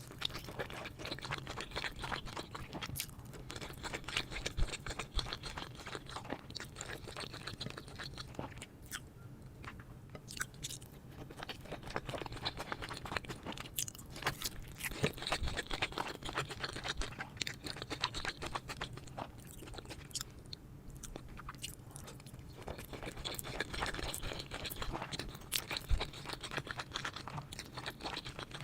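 Close-miked eating: continuous chewing with irregular crunching and crackling, in louder clusters every few seconds.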